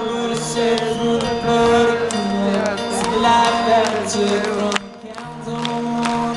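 Live acoustic guitar through a concert sound system, holding strummed chords, with singing over it. The sound drops out briefly about five seconds in, then a new chord rings.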